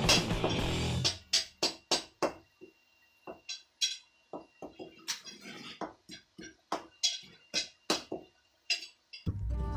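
Hammer blows on steel at the anvil: a string of sharp, irregular metallic strikes, about two or three a second, each with a short ring. Background music plays for the first second and comes back near the end.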